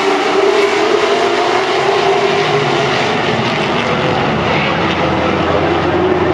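A field of late model stock cars racing past, their V8 engines blending into one loud, steady drone. The engine notes drift slightly up and down as the cars go by.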